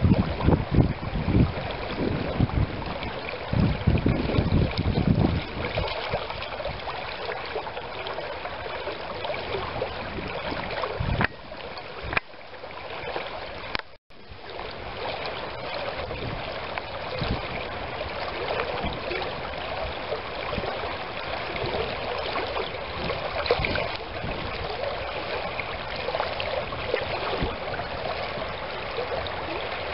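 Shallow stream running over a riffle, a steady rush of water. Gusts of wind knock on the microphone for the first few seconds, and the sound drops out briefly about halfway through.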